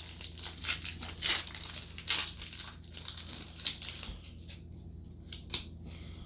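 Foil booster-pack wrapper crinkling and being torn open, a dense run of crackles for about four seconds, then a few light clicks as it settles.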